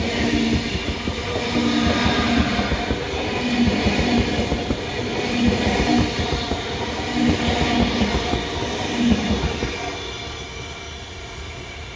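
Queensland Rail New Generation Rollingstock electric train passing close by at speed. Its wheels rumble and hiss on the rails with a surge about every two seconds as each carriage's bogies go by. The sound eases off after about ten seconds as the last car passes and the train draws away.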